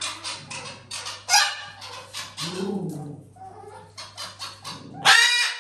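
Macaw chattering in a quick run of harsh, clicking calls, with a low call in the middle and a loud, harsh squawk near the end.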